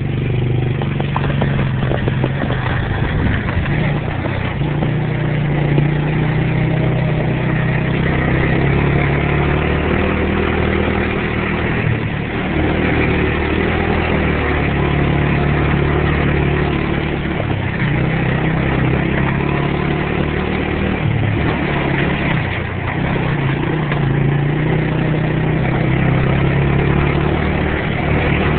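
ATV engine running as it is ridden along a rough dirt trail, its note rising and falling with the throttle.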